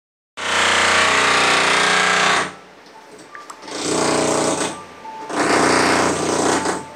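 Loud power drilling, running in three bursts of about two seconds, one second and one and a half seconds, with short pauses between.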